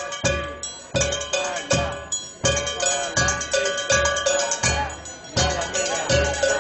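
Frying pan struck with a spoon and a thimble worn on a finger, played as a folk rhythm instrument: a steady, ringing metallic beat, a heavy stroke about every three-quarters of a second with lighter taps between.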